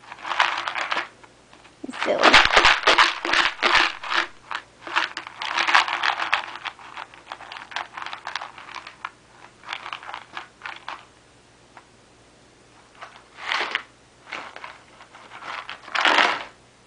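Clear plastic cookie container with a blue lid being shaken by a baby, the cookies inside rattling against the plastic in loud bursts with short pauses between.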